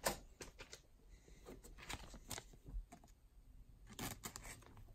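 Faint clicks and light rustles of baseball trading cards being handled, picked up and set down on a tabletop, with a few sharper ticks at the start, partway through and again near the end.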